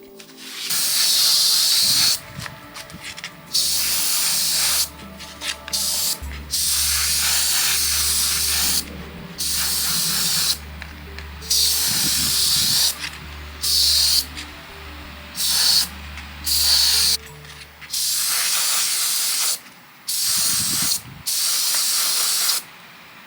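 Finish being sprayed onto the work in about a dozen short bursts, each around a second long, with gaps between them. A steady low hum runs under most of the bursts.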